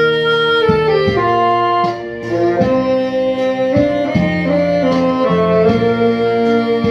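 Instrumental music: a melody of long held notes over sustained accompanying chords.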